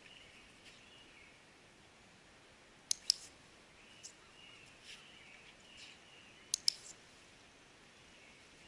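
Training clicker pressed twice, about three and a half seconds apart, each press a sharp double click-clack, marking the dog's behaviour for a treat. Faint birdsong chirps behind it.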